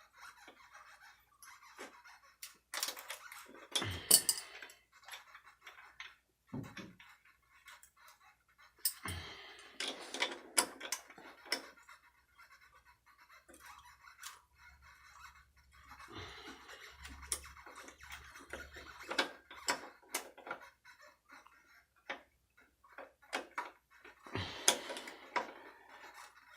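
Small metal parts and hand tools clicking, clinking and scraping on and off during bike assembly work on a jackshaft, with a few sharper knocks.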